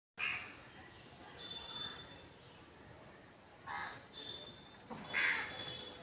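Crow cawing three times, short harsh calls spaced a few seconds apart, with a thin high whistle-like note held briefly between them.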